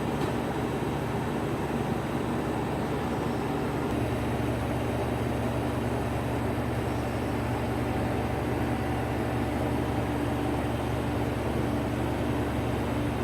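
Steady mechanical hum with a low drone, its low pitch shifting slightly about four seconds in.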